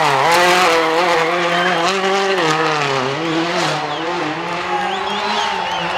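A World Rally Car's 1.6-litre turbocharged four-cylinder engine held at high revs, its pitch swinging up and down as the car spins donuts. Tyres squeal near the end.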